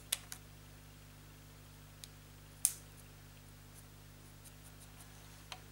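Small clicks and taps of the plastic and metal parts of a push-button mains power switch being handled while a small pin is fitted into it: a few light clicks at the start, a sharper click about two and a half seconds in and another near the end, over a faint steady hum.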